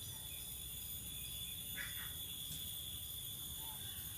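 Insects chirring steadily in several high, continuous tones, over a low rumble.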